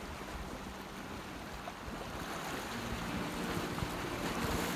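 Sea waves washing on a rocky shore, with wind blowing across the microphone. About halfway through, a low steady hum comes in and grows a little louder.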